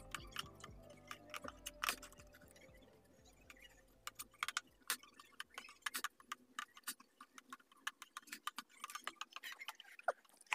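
Faint, irregular clicking and ticking of ferric chloride etchant sloshing in a plastic tub as it is rocked by hand, sped up.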